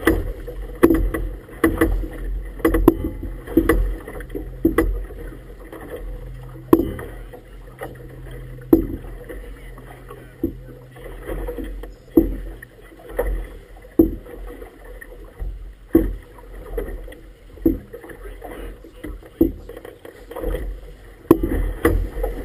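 Choppy water slapping irregularly against an inflatable boat's hull and tube, about once a second, over a low wash of water. A low steady hum runs under it for the first half.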